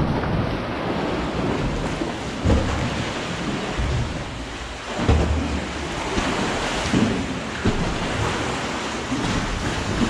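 Lake water washing and slapping against the rock walls inside a sandstone sea cave, a steady wash of noise broken by several low thumps a couple of seconds apart.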